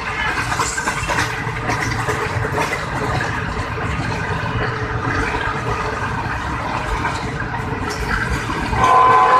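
Steady running noise of a moving passenger train, heard from inside the coach. Near the end the locomotive's horn starts sounding, a loud held chord of several steady tones.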